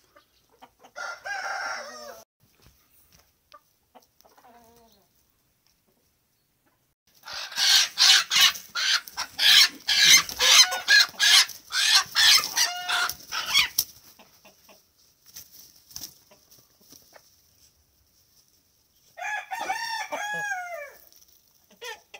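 Chickens mating: a short squawking call about a second in, then about seven seconds of loud, rapid wing flapping mixed with squawks as a rooster mounts a hen, and another loud squawking call near the end.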